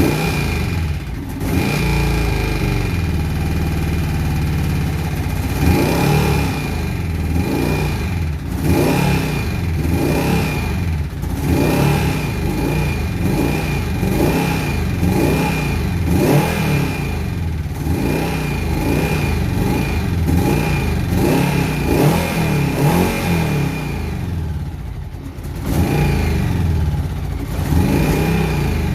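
Honda GL1100 Gold Wing's flat-four engine idling, then blipped repeatedly, about once a second. A thin steady high whistle runs under the engine sound and rises with each blip. These are the odd noises the bike makes after its carburetors were reinstalled.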